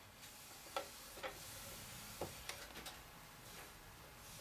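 Faint sound of a hand rubbing a beeswax and coconut oil treatment into a warm wooden cutting board: a soft hiss with a few scattered small ticks.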